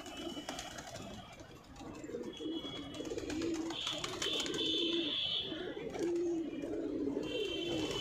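A flock of fancy pigeons cooing over and over, with wing flaps as birds take off and land among them. A thin high whistle comes and goes over the cooing, loudest about halfway through.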